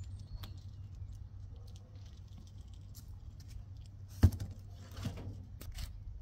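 A sharp knock about four seconds in as a cardboard box is set down under the tail of an aluminium airplane fuselage, followed by a lighter knock a second later. Faint clicks and handling noise over a steady low hum.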